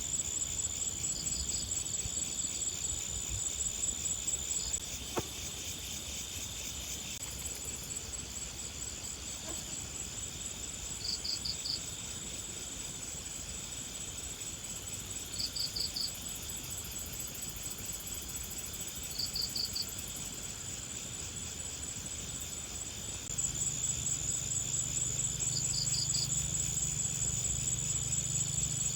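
Insects trilling in grass: a steady high trill over a lower continuous buzz, with a short chirp of about three quick pulses repeating every four seconds or so. A low hum comes in about two-thirds of the way through.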